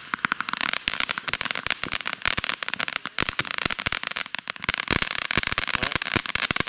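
A consumer ground fountain firework burning, spraying sparks with a hiss and dense, rapid crackling throughout.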